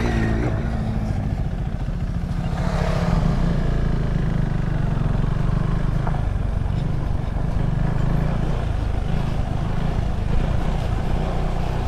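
Motorcycle engine running steadily while riding, with a brief rush of noise about three seconds in.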